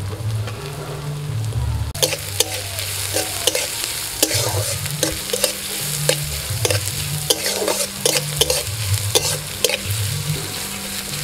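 Chopped onion, green chilli, carrot and capsicum sizzling in a little hot oil in a metal wok while a metal spatula stirs them, scraping and clicking against the pan. The sizzle gets louder about two seconds in.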